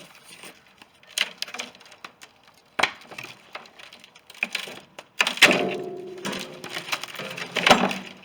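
A wooden shipping crate being broken apart: several sharp cracks and knocks of boards splitting and being pried loose, one about five seconds in followed by a ringing creak for about a second.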